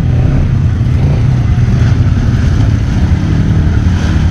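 ATV engine running close by, a loud, steady low engine note.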